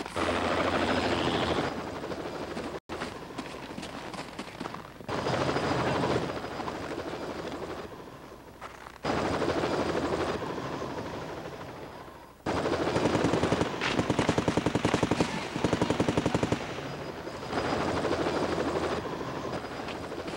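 Helicopter rotor sound with repeated bursts of rapid machine-gun fire, five bursts a few seconds apart, the longest about four seconds.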